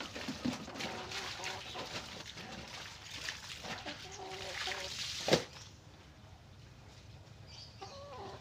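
Water splashing and sloshing as clothes are washed by hand in a basin of water. A single sharp knock about five seconds in, after which the splashing goes quiet.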